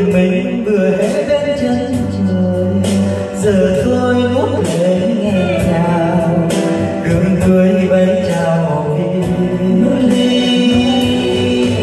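A man singing a Vietnamese ballad into a handheld microphone over backing music, his voice amplified through the room's speakers.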